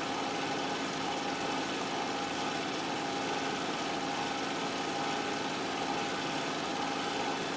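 Steady mechanical drone with a few constant tones, unchanging throughout.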